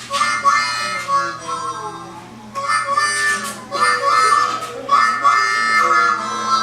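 A harmonica plays bluesy chords in short bursts while a boxer dog howls along in long, wavering, gliding notes.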